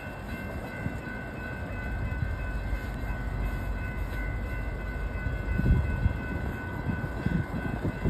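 Low rumble of an approaching Norfolk Southern freight train led by EMD SD60E diesel locomotives, still out of sight around the curve and slowly growing louder. A few heavier low thumps come in the second half, with faint steady high tones above.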